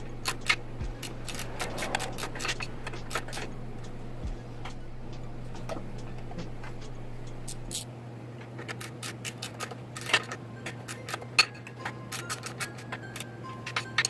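Irregular metallic clicks, taps and clinks of hand tools and bolts being handled while fitting motorcycle handlebar risers, over a steady low hum.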